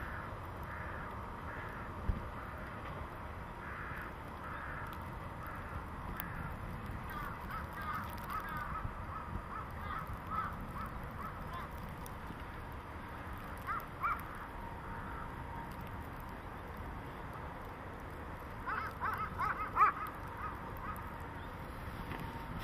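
Crows cawing in repeated harsh calls, with bouts of calls about eight to eleven seconds in, again around fourteen seconds, and the loudest bout near the end. Underneath is a faint low rumble, and there is a single sharp knock about two seconds in.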